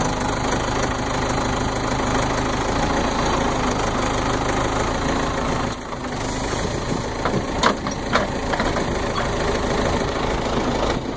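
Backhoe engine running steadily. About six seconds in it dips slightly, followed by a few sharp knocks.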